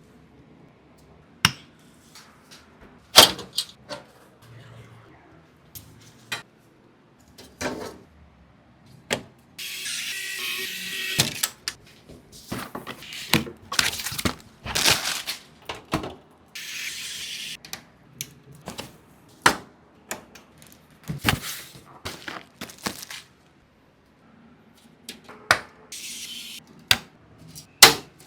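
Computer parts being handled and fitted: a run of irregular sharp clicks, taps and knocks of plastic and metal, some loud, with two brief rustling noises about ten and seventeen seconds in.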